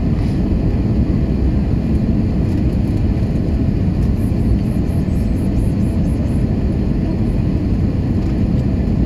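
Steady low roar of an Airbus A320's jet engines and rushing airflow heard inside the passenger cabin, the aircraft on approach for landing.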